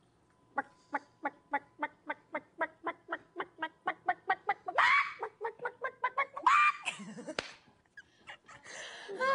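A person imitating a chicken by voice: a steady run of short clucks, about three a second, broken by two louder, drawn-out squawks about five and six and a half seconds in.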